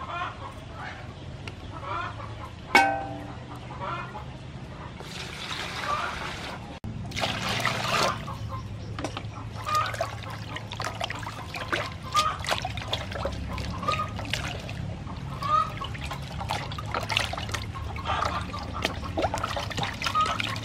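A piece of raw beef being washed by hand in water in a large aluminium basin: repeated sloshing and splashing as hands rub and turn the meat. Near the start a metal dish clanks once with a short ring, and water is poured just before the washing begins.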